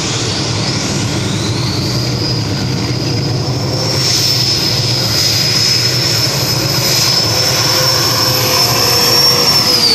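Modified pulling tractor running at full power as it drags the weight sled down the track: a steady loud engine noise with a high whine that climbs about a second and a half in and then holds.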